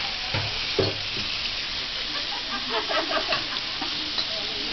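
Beef sizzling steadily as it is stir-fried in a hot wok, with two dull knocks about half a second apart near the start.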